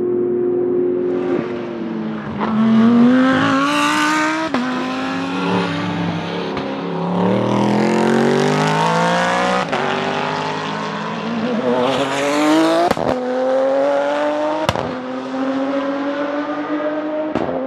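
Wolf GB08 F1 Extreme single-seater's Ford 5.2-litre Aluminator V8 at full throttle, revs climbing again and again and cut short by a series of quick, sharp upshifts.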